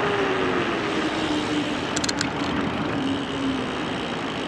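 Electric bike with a CYC X1 Stealth mid-drive kit riding fast on a city street: a steady rush of wind and road noise, with a whine that falls in pitch over the first three seconds as the bike slows. There are a few quick clicks about two seconds in.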